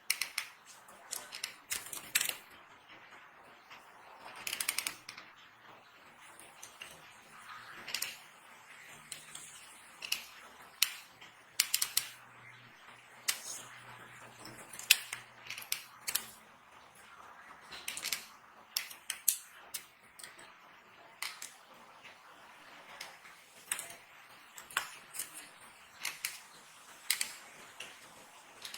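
Dry bar soap being cut and crushed: crisp cracks and crunches at irregular intervals, sometimes several close together, with quiet gaps between.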